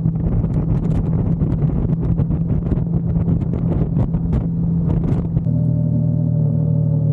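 A vehicle engine running steadily, with wind buffeting and crackling on the microphone. About five seconds in, the wind noise drops away and the engine settles into a smooth, even hum.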